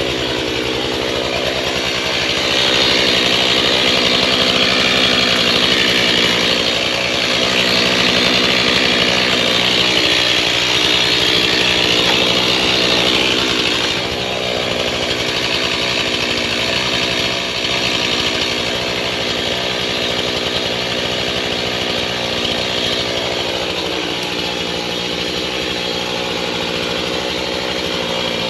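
Small engine-driven power tool running steadily at high revs, louder from about three to fourteen seconds in.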